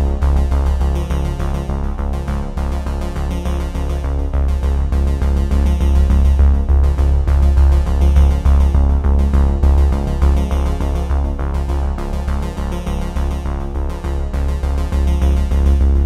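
Electronic background music with sustained synthesizer tones, heavy bass and a steady beat.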